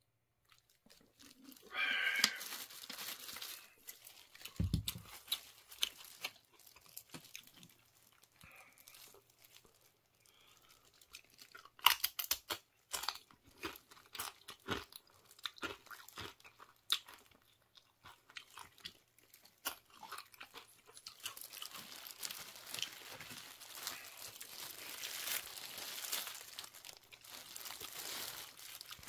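Close-miked eating: tortilla chips being bitten and crunched, with chewing between bites. Near the end comes a steadier rustle of a plastic food-service glove crinkling as the hand handles the chips on the paper.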